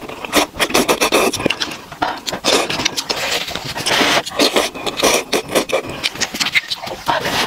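A person slurping noodles and chewing, close to the mic: quick wet mouth clicks and smacks throughout, with several longer slurps drawing noodles in, the strongest about three and four seconds in.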